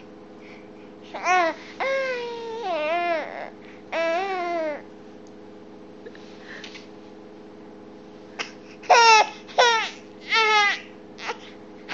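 A five-month-old baby fussing and crying in short, high wails that fall in pitch. Three come in the first five seconds, then a quicker run of cries starts about nine seconds in.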